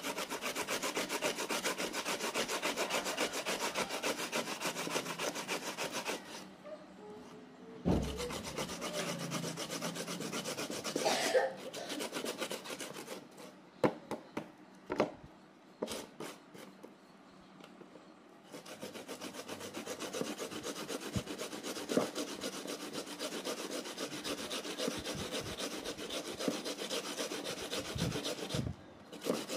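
Peeled cassava grated by hand on a traditional wooden grater with a punched metal face: fast, even scraping strokes in long runs. The runs break off in the middle for several seconds, where a few sharp knocks are heard.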